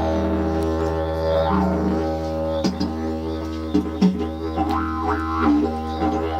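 Pear-shaped didgeridoo in D-sharp playing a continuous low drone, its overtones shifting as the mouth shape changes, with a run of sharp rhythmic accents in the middle.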